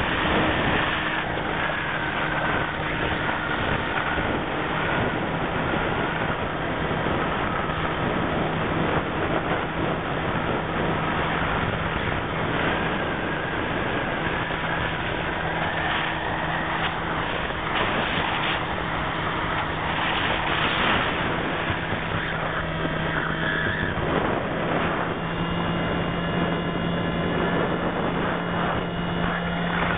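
Motor and propeller of an FPV radio-controlled model aircraft, heard from its onboard camera. The drone of the motor mixes with wind rush, and its pitch wavers up and down with a slight rise near the end.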